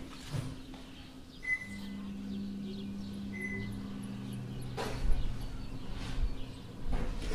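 Kittens moving about on a laminate floor: soft scuffs and taps of small paws in the second half, with two short high peeps in the first half over a low steady hum.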